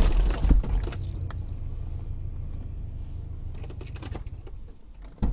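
A car collision heard through the dashcam: a loud crash right at the start, with a high metallic ringing and rattle that dies away over about a second and a half. After it comes a low rumble and a few faint knocks, and one sharper knock near the end.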